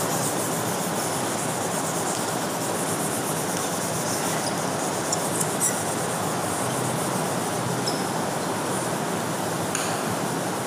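Whiteboard duster scrubbing back and forth across the board, a steady rubbing noise as the marker writing is wiped off.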